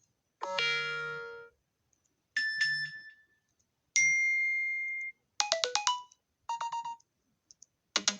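A series of short iPhone XR tones played one after another from the phone's speaker, each a different brief chime, beep or quick run of notes, with a pause between them. About six play, the last starting near the end.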